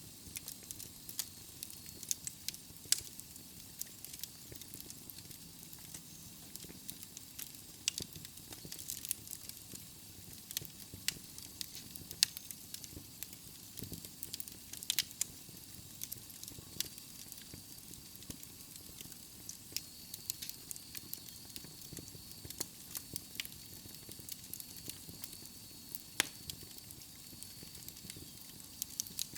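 Wood fire burning in a fireplace: logs crackling and popping at irregular intervals over a steady soft hiss.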